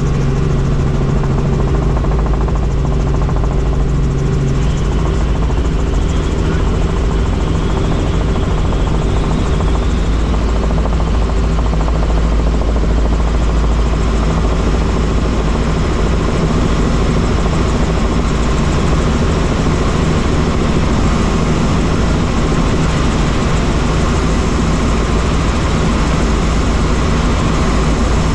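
Helicopter's engine and rotor running with a loud, steady drone.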